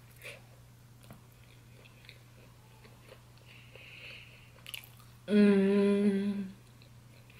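A person chewing a mouthful of food, with small soft mouth clicks. About five seconds in comes a loud closed-mouth vocal sound at one steady pitch, lasting just over a second.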